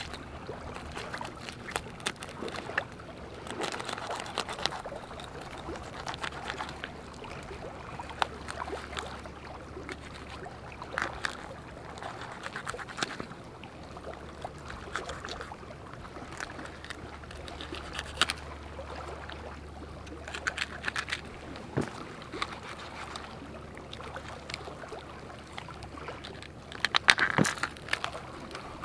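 Knife working through a bass as it is split open along the back: irregular small cuts, scrapes and crunches, a few of them sharper.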